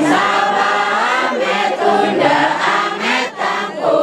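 A group of voices chanting a song together: the chant of a Javanese cowongan rain-calling ritual. The singing breaks off briefly about three seconds in.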